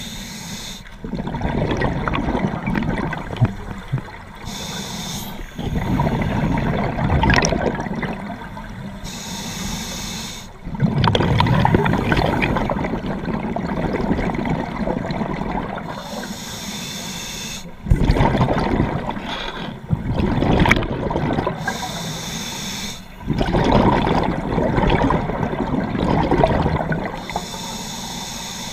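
Scuba diver breathing through a regulator underwater: a short hissing inhale every five seconds or so, each followed by a longer, louder gurgle of exhaled bubbles.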